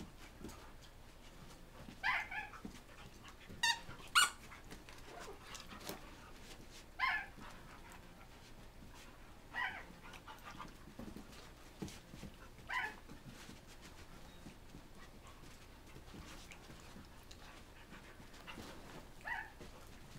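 Dogs play-wrestling, with about seven short, high, sharp dog barks spaced a few seconds apart.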